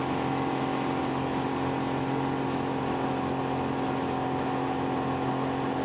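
Yamaha Enduro two-stroke outboard motor running steadily at cruising speed, driving a small boat. The engine note holds an even drone with no change in pitch.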